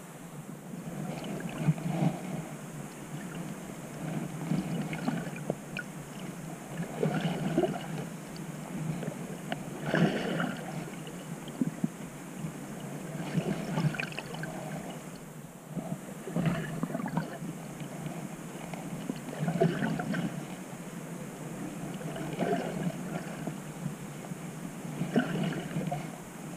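Muffled water sloshing and splashing around a camera held at the sea surface as a skin diver swims, swelling every two to three seconds.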